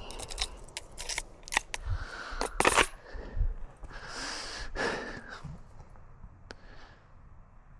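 Sharp metallic clicks and rattles from a revolver and its ammunition being handled between shooting strings. The clicks come in clusters over the first three seconds, the loudest near three seconds in, then a brief rustle around four to five seconds.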